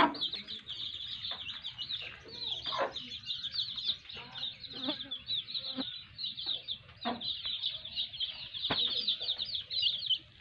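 A brood of domestic chicks peeping constantly, many high cheeps overlapping, with a low cluck from the mother hen now and then.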